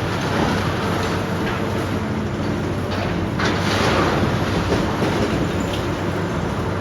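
Heavy demolition machinery running steadily with a low engine hum, and a louder rough surge of noise about three and a half seconds in lasting under a second.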